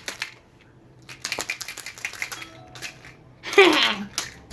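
Homemade sound effect: a quick run of clicks or taps, then a loud sound sliding down in pitch, followed by a single click.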